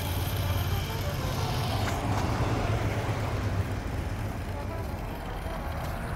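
Steady road traffic noise from cars driving along a multi-lane street, a continuous wash with a low hum underneath.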